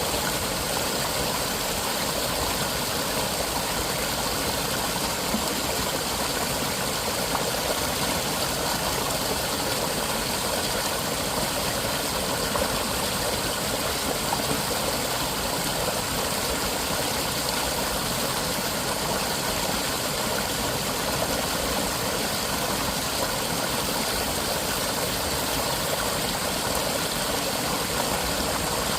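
Rain and a mountain valley stream: a steady, even rush of water.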